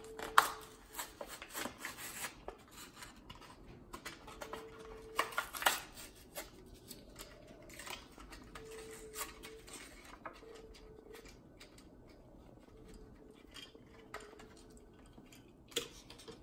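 A Hot Wheels blister pack, a cardboard card with a plastic bubble, being torn and peeled open by hand: scattered crackles and rips, loudest about half a second in and again around five to six seconds in. Near the end the die-cast car is set down on the table with a small click.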